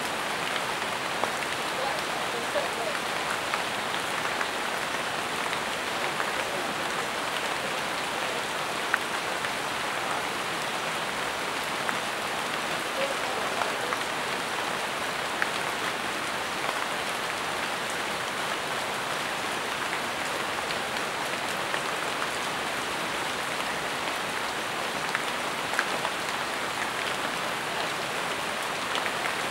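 Steady rain falling on broad jungle leaves: an even hiss with scattered louder single drops.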